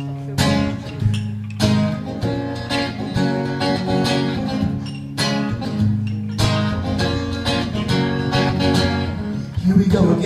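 Acoustic guitar intro: chords strummed and left to ring, with a sharp accented strum every second or so. A man's singing voice comes in just before the end.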